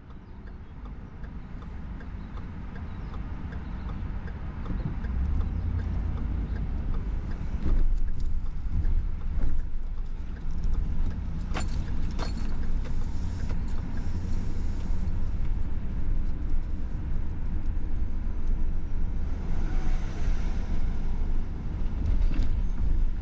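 Low rumble of road traffic, fading in over the first few seconds, with a few sharp clicks about halfway through.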